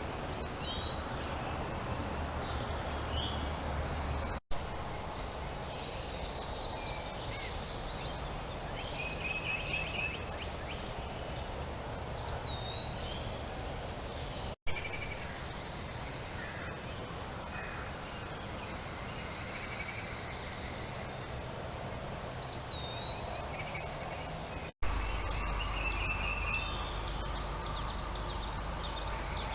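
Several wild birds calling and singing over a steady background hiss: short whistled phrases, high chips and a few dry trills. The sound drops out for an instant three times.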